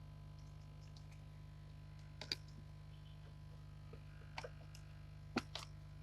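A few sharp clicks and taps, about two seconds in and twice more near the end, over a steady low electrical hum.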